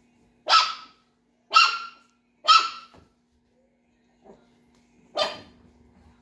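Small dog barking sharply: three high barks about a second apart, then a faint yip and one more bark near the end.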